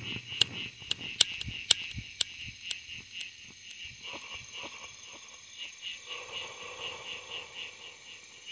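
Night insects calling in a steady, pulsing chorus of about four pulses a second, with a thinner high steady trill over it. Sharp clicks about every half second in the first few seconds stand out as the loudest sounds.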